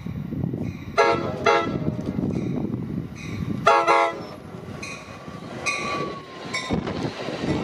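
Amtrak passenger train's cab-car horn sounding a multi-tone chord in several blasts: two short ones about a second in, a longer one near four seconds, then fainter short ones. Under the horn is the steady rumble of the approaching train and its wheels on the rails.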